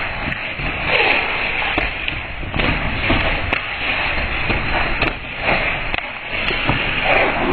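Boxing gloves landing during sparring: a few irregular sharp slaps and thuds over a steady outdoor background hiss.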